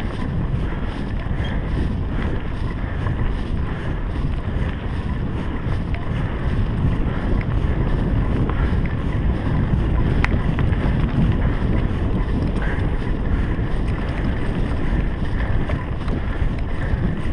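Mountain bike riding along a dirt singletrack: steady wind rumble on the action camera's microphone mixed with tyre noise on the rough ground, with a few faint clicks from the bike.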